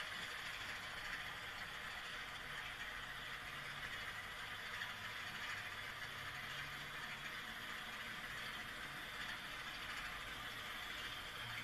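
Bachmann Class 25 model diesel locomotive running along the track: a steady low running noise from its motor and wheels on the rails.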